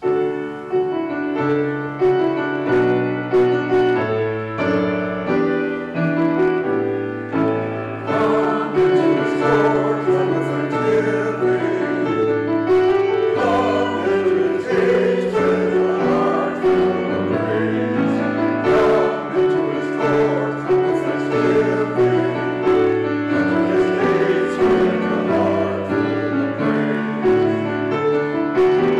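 A grand piano plays alone at first, and a small mixed choir of men and women joins in singing with the piano about eight seconds in.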